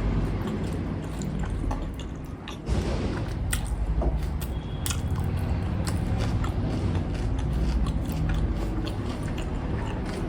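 Close-miked chewing and biting of momo dumplings, with many short wet mouth clicks. A steady low hum runs underneath.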